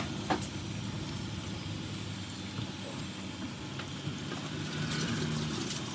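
Steady low mechanical hum with a light hiss, with one sharp click about a third of a second in.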